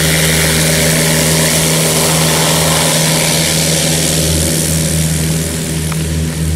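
Single-engine Piper Cherokee light aircraft, its four-cylinder piston engine and propeller at full power on the takeoff roll: a loud, steady drone that fades a little as the plane pulls away near the end.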